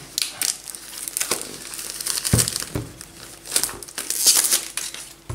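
Plastic shrink-wrap being pulled off a cardboard game box and crumpled, crinkling in irregular bursts, with a dull knock a little over two seconds in.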